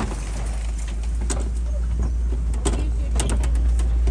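Safari ride truck driving, a steady low rumble with scattered rattles and knocks from the vehicle.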